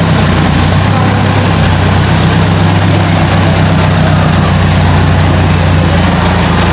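Massey Ferguson tractor's diesel engine running at a steady speed close by.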